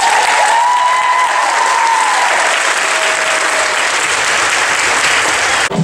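Audience applauding and cheering in a theatre at the end of a dance number, with one voice holding a long cheer over it for the first two seconds. The applause cuts off suddenly near the end.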